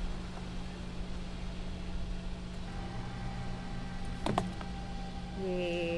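A car rolling slowly forward with a steady low hum. About four seconds in comes a single sharp crack as a lemon is crushed under a tyre.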